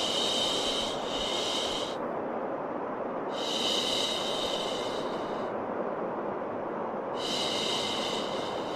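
A rhythmic "shh" shushing sound, each hiss lasting about two seconds and repeating every three to four seconds, over a steady low rushing white noise used to calm and settle a baby.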